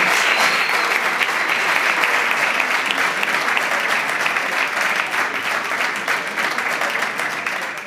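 Audience applauding, many hands clapping in a dense, steady patter that eases off slightly near the end.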